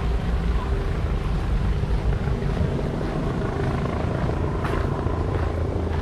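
Steady low engine rumble with a faint steady hum over it.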